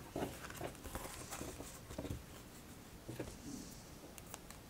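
Faint scattered taps and soft clicks of tarot cards being picked up, handled and set down on a cloth-covered table.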